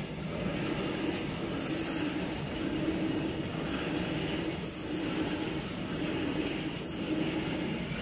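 Indian Railways freight train of covered goods wagons rolling past close by: a steady rumble of steel wheels on rail that swells and fades in a regular beat as the wagons go by.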